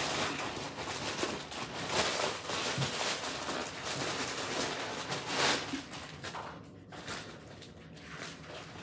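Plastic mailer bag crinkling and rustling as it is torn open by hand, with louder rips about two and five and a half seconds in.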